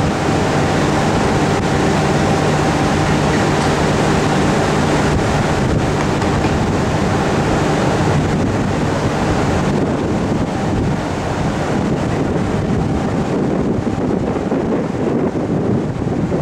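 Wind buffeting the microphone on a cruise ship's high open deck: a steady, loud rushing noise. A faint low steady hum sits underneath for the first half, then fades.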